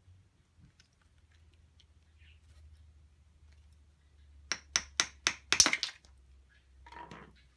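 Hammer blows driving a long metal rod into a trackball's solid resin ball: about six sharp knocks in quick succession from about halfway through, splitting the ball in two, then a softer scraping rattle near the end.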